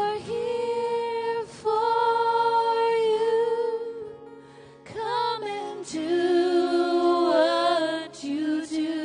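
Live worship band: voices singing slow phrases of long held notes over acoustic guitars and keyboard, with short breaks between phrases.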